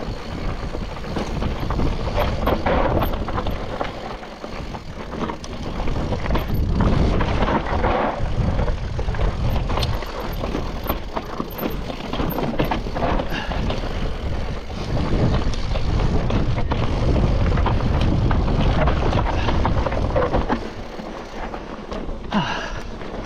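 Mountain bike descending a rough, loose dirt trail: tyres rumbling and skittering over rock and gravel, with frequent knocks and rattles from the bike over bumps, and a steady low rumble of wind on the microphone.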